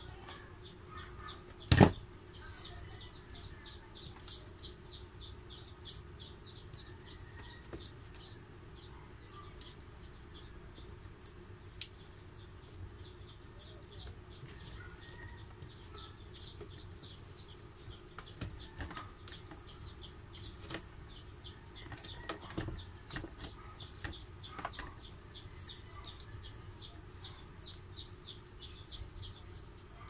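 Needle-nose pliers and small wiring parts being handled on a workbench while a loose connector on a coffee maker's heater wiring is worked tight. A sharp click comes about two seconds in, with scattered light knocks and rustles later. A faint fast ticking runs in the background through the first half.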